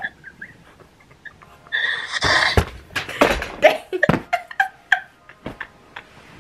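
Women laughing in bursts, loudest between about two and four seconds in, with a few sharp taps mixed in.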